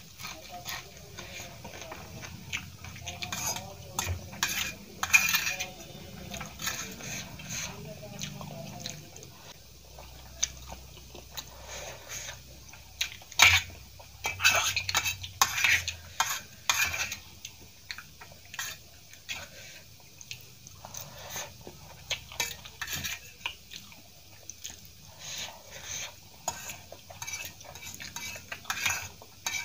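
A metal fork clinking and scraping on a stainless steel plate as noodles are gathered up, in irregular clinks and scrapes that come thickest about a few seconds in and again around the middle.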